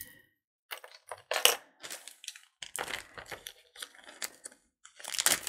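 Beaded costume-jewelry necklaces being handled and laid out: faceted beads clicking and rattling against each other in irregular bursts, with a denser stretch of rattling near the end.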